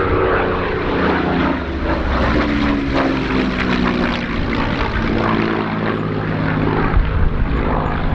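Hawker Hurricane's Rolls-Royce Merlin V12 engine and propeller running as the fighter passes overhead in a banking turn. The engine note falls in pitch over the first few seconds as it goes by, then holds steady.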